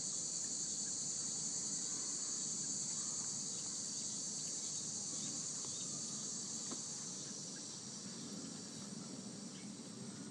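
Steady, high-pitched chorus of insects chirring in the background, holding evenly and fading slightly near the end.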